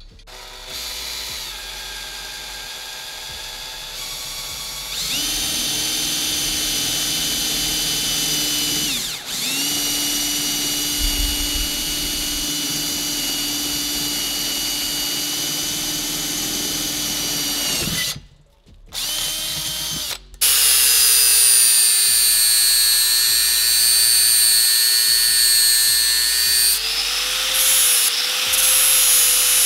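Electric drill whining steadily as it drills into a turbocharger's aluminium compressor housing; it speeds up about five seconds in and stops after about eighteen seconds, with a short second run. Then an angle grinder starts, louder, cutting metal, and its pitch sags under load near the end.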